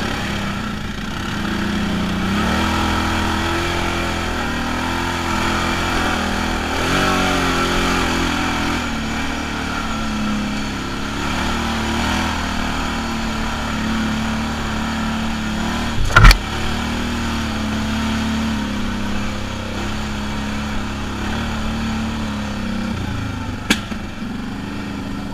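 Quad (ATV) engine running as it is ridden through deep mud ruts, its pitch rising and falling with the throttle. A single loud, sharp knock about two-thirds of the way in, and a smaller click near the end.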